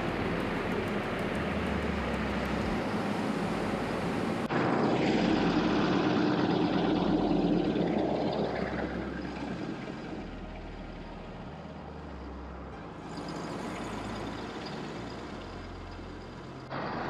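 Cummins ISB 6.7 diesel engine of a motorhome running, after an oil change, to circulate the fresh oil before the level is rechecked. It turns louder abruptly about four seconds in, then dies down over the next few seconds.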